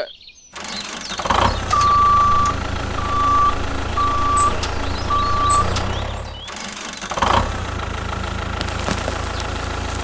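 Heavy tractor engine running steadily, with four short reversing beeps at about one a second. The engine sound breaks off briefly past the middle and starts again with a knock.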